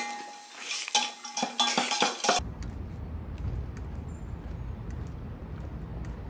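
Cutlery and dishes clinking, with a few sharp clicks, while someone eats. About two and a half seconds in, the clinking stops and a steady low outdoor rumble takes over.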